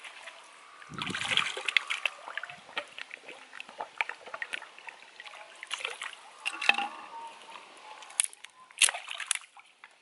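Stream water sloshing and splashing in quick, irregular strokes as a bamboo tube and then a stick are dipped and moved through it. The splashing is loudest about a second in, with two sharp splashes near the end.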